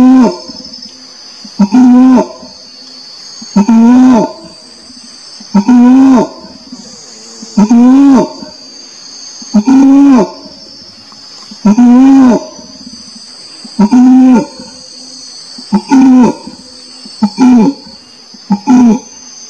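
Orangutan calling: a run of loud moaning calls about every two seconds, each rising then falling in pitch, becoming shorter and quicker near the end. A steady high insect buzz runs behind them.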